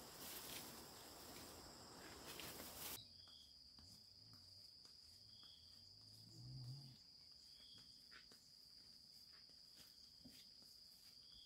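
Near silence with a faint, steady, high-pitched insect trill and a short chirp about every two seconds. A soft rushing hiss cuts off about three seconds in.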